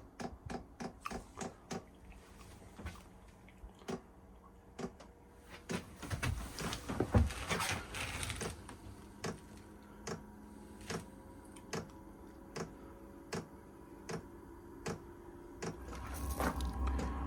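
Chinese diesel heater starting up: its fuel pump ticks in a regular rhythm, quickly at first and then about once a second, over the faint steady hum of the blower fan. A low rumble comes in near the end.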